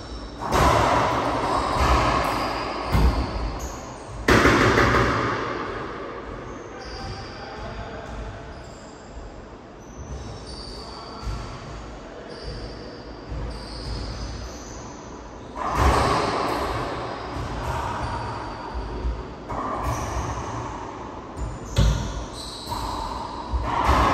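A racquetball rally: the ball is struck by racquets and smacks off the court walls in sudden loud hits that echo in the enclosed court. The hits bunch near the start and again in the last third, with quieter stretches between.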